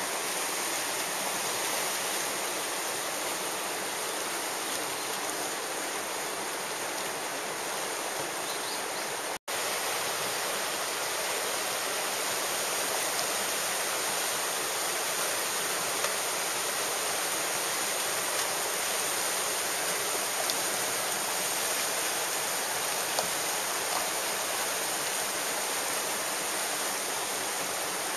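Whitewater rapids rushing steadily. The sound cuts out for an instant about nine seconds in.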